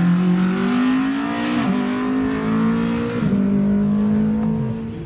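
Slalom race car's engine accelerating hard. The pitch climbs and breaks back at two gear changes, then the engine eases off near the end.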